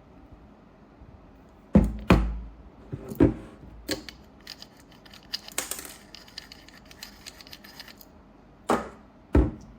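Hard objects being handled on a hard surface: two loud knocks about two seconds in, scattered clicks, a run of fast light rattling clicks in the middle, and two more loud knocks near the end.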